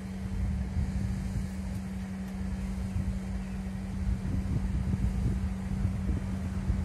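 Steady low hum with gusts of wind on the microphone as a freight train approaches in the distance, its rumble growing slightly over the last few seconds.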